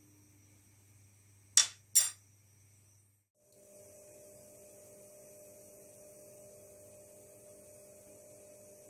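Faint steady electrical hum, broken by two sharp clicks about a second and a half and two seconds in; after a brief dropout the hum carries on with a few steady tones over a high hiss.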